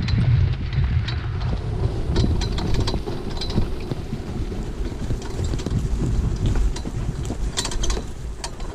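Wind rumbling on the microphone of a camera on a horse-drawn training cart moving along a dirt track, with scattered sharp clicks and rattles, bunched about two seconds in and again near the end.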